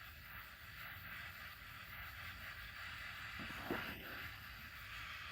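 Butane torch flame hissing steadily while it heats a seized bolt to free it, with a couple of faint knocks about three and a half seconds in.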